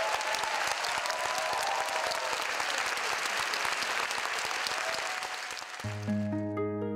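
Audience applauding steadily, with faint music beneath it. Near the end the applause fades and plucked-string music begins over a low held note.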